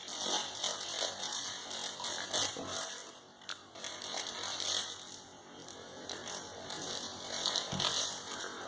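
A dog smacking and licking its mouth over and over while working at sticky peanut butter, in a run of irregular wet clicks and smacks.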